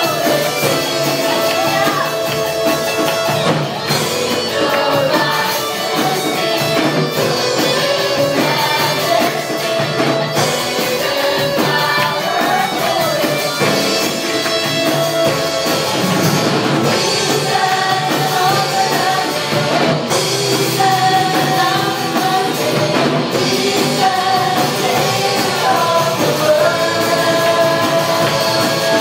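Live amplified praise band playing a worship song: drum kit, electric guitars and keyboard, with women singing the melody into microphones.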